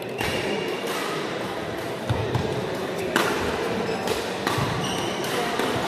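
Badminton rally in a reverberant hall: sharp racket strikes on the shuttlecock a second or so apart, with shoe thuds on the court and voices chattering in the background.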